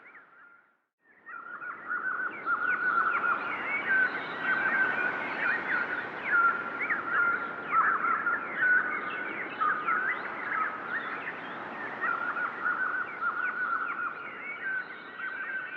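Many small songbirds chirping and twittering together in a dense chorus, fading in about a second in after a brief drop to silence.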